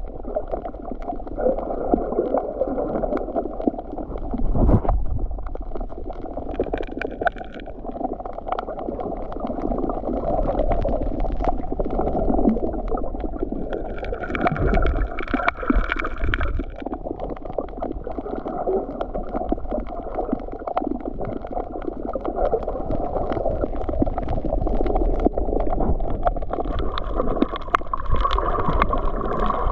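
Underwater sound picked up by a submerged camera: muffled, steady water rush and gurgle, full of small clicks and crackles. A faint higher tone comes and goes a few times.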